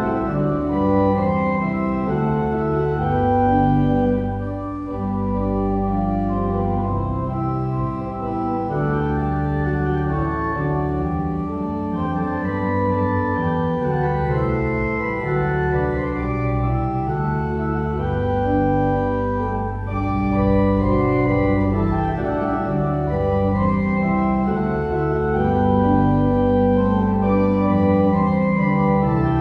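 Organ music playing slow, sustained chords, each held for a second or two before the next.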